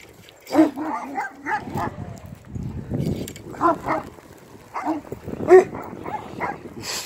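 Kangal shepherd dogs barking, several barks at a time in short bouts, with a low rumble about three seconds in.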